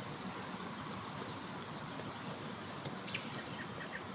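Steady outdoor background noise, with a few short, faint high chirps about three seconds in.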